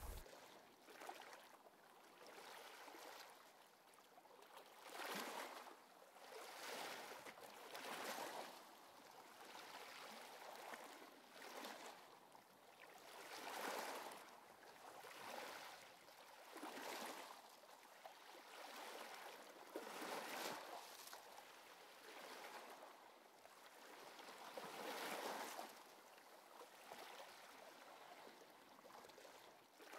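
Faint sound of sea waves, swelling and washing out again about every couple of seconds.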